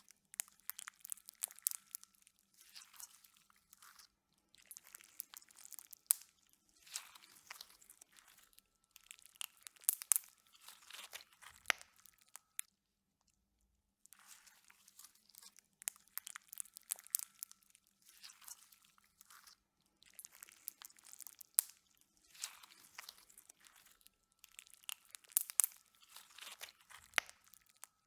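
Slime being squeezed and worked by hand, giving clusters of sharp crackles and pops. These come in bursts of a second or two with short pauses between, and a longer pause about halfway through.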